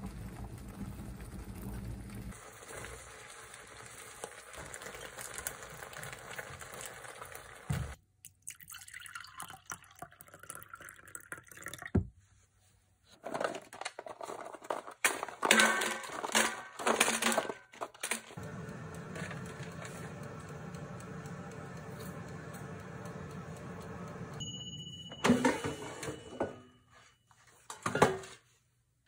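Cream sauce simmering in a frying pan as cream is poured in, a steady hiss. Later, rustling and clatter as a plastic tray of small snack balls is tipped into an air fryer basket, then a steady hum, and near the end a held electronic beep, the air fryer signalling that it is done, followed by a knock.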